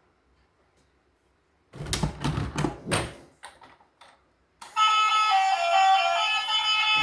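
A quick run of sharp knocks and clatters, then guitar music starts a little past halfway and runs on.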